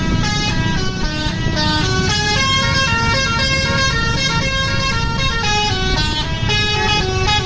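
Bus's multi-tone 'basuri' telolet horn playing a melody of short stepping notes, with a low rumble underneath.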